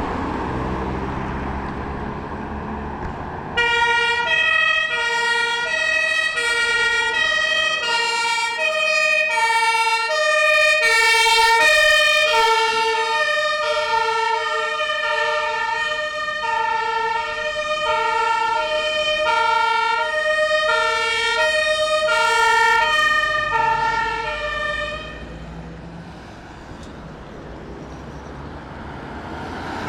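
A German emergency vehicle's two-tone siren (Martinshorn) alternating between a low and a high pitch as the vehicle drives past. It starts suddenly about three and a half seconds in over road and engine noise, and fades out a few seconds before the end.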